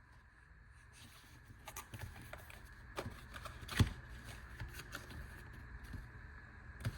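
Small cardboard product box and its contents being opened and handled: light scraping and rustling with scattered clicks, and one louder knock about four seconds in, over a faint steady hum.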